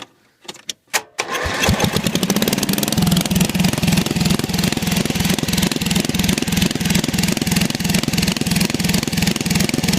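Riding lawnmower's engine started with the key: a few clicks, then it catches about a second and a half in and runs steadily with an even beat.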